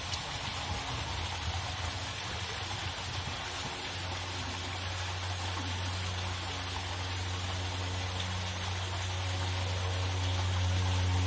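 Steady water-like rushing hiss, joined about four seconds in by a low steady hum that grows louder toward the end.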